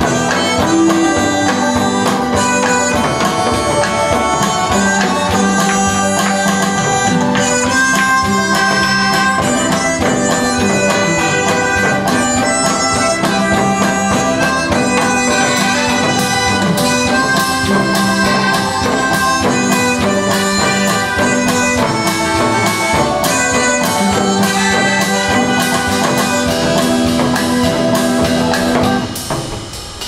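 Harmonica playing a melody into a microphone, with held reedy notes over a band backing with a steady drum beat. The song ends about a second before the end.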